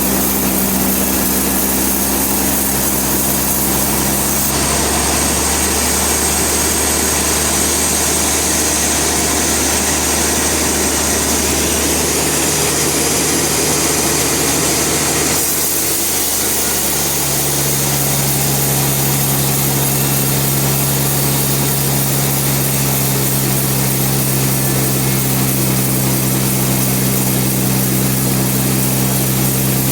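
Bandsaw sawmill running: a steady engine drone under a bright hiss from the cutting. The drone's pitch shifts abruptly about four seconds in and again around sixteen seconds.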